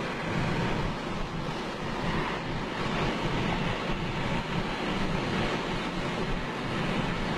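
Steady road and wind noise inside a car's cabin while it cruises along a highway.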